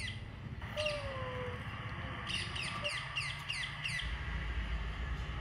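Outdoor birdsong. A single falling whistled note comes a little under a second in, and a quick run of about five sharp, falling chirps follows between two and four seconds in, over a steady low background rumble.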